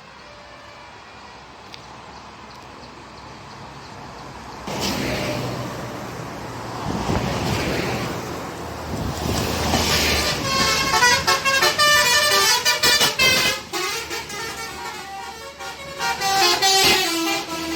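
A bus comes up with its engine and tyre noise rising about five seconds in, then from about ten seconds in its Basuri telolet horn plays a quick tune of stepped multi-note honks for about seven seconds as it passes.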